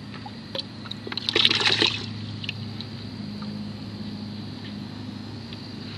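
A plastic container being dipped into a bucket of water and lifted out full. The water splashes and sloshes, loudest about a second and a half in, with a few light plastic knocks against the bucket.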